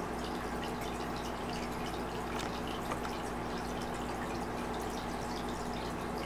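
Water trickling and dripping steadily in an aquarium, with a steady hum beneath it.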